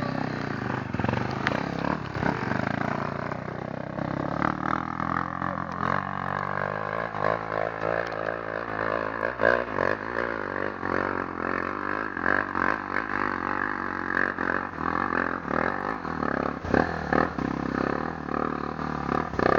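Dirt bike engine revving hard in repeated surges, its pitch rising and falling as the throttle is worked, with a few sharp knocks near the end.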